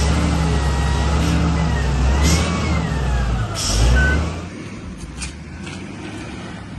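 A heavy truck's engine running, with a whine that rises and falls and two short hisses of air about two and three and a half seconds in; the engine sound drops away after about four seconds.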